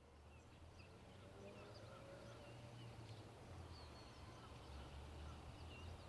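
Songbirds chirping over a faint, steady low rumble from the diesel locomotives of a freight train approaching in the distance.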